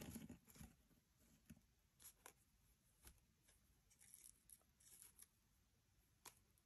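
Near silence, with faint scattered paper rustles and light taps as a hand presses and handles paper on an open book page.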